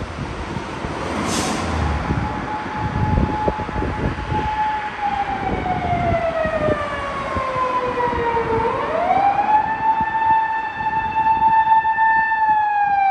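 Japanese police car siren wailing: a held tone slides slowly down, sweeps quickly back up about nine seconds in, holds, and begins to fall again near the end. Traffic rumbles underneath.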